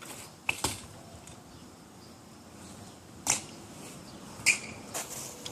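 A BMX bike being ridden, with a few sharp clacks and knocks: a pair about half a second in, one about three seconds in, and two more about half a second apart near the end.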